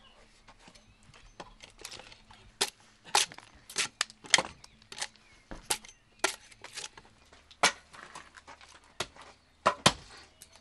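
Axe blows hewing split wooden shingle blanks: a series of sharp, irregularly spaced chopping strikes, about a dozen, with short pauses between them.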